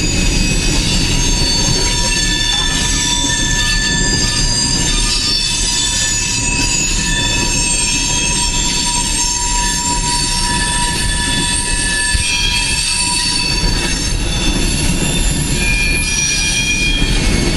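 Coal train's freight cars rolling past over a steady low rumble. The steel wheels squeal against the rails, and several high squeals of different pitch come and go.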